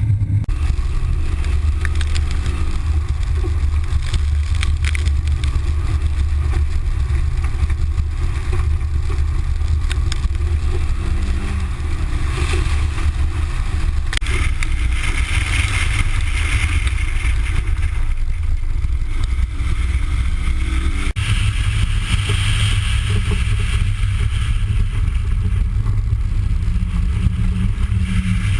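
1985 Toyota MR2's 1.6-litre twin-cam four-cylinder engine running hard, its pitch rising and falling repeatedly as it is revved up and backed off, over a heavy, continuous low rumble.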